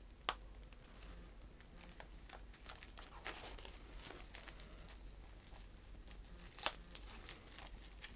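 Plastic wrapping being peeled and torn off a DVD case, crinkling with scattered small crackles and two sharper snaps, one just after the start and one near the end.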